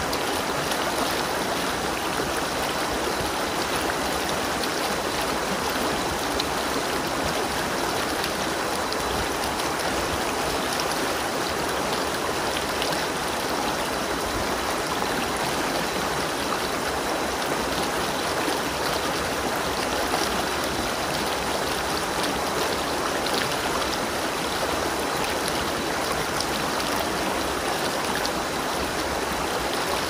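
A flowing stream babbling steadily, with faint scattered splashes.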